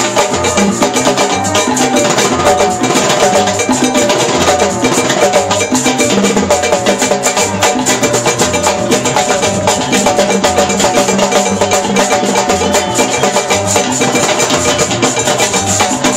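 Live Latin percussion band playing a steady, driving groove: congas and timbales beating under pitched instrumental or vocal lines, with a dense run of sharp percussive hits.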